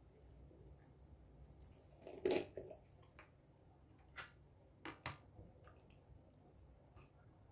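Red plastic screw lid twisted off a glass jar of Lotus Biscoff spread: one short, rasping crackle about two seconds in. Then a few light clicks as the lid is set down and a spoon goes into the jar.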